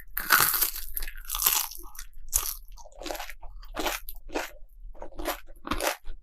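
Close-miked crunchy biting and chewing of food, with loud crunches in the first second and a half, then shorter chewing crunches about twice a second.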